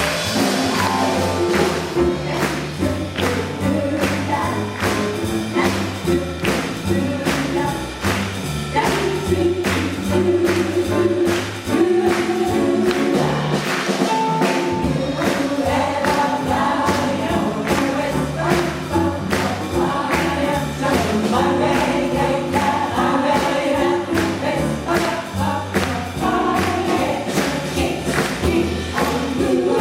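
A jazz chorus singing in harmony over a small jazz band of piano, saxophone, bass and drums, with a steady beat and a moving bass line.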